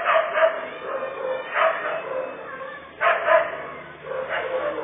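A baby crying in short wails, about four in a row with brief breaks between them.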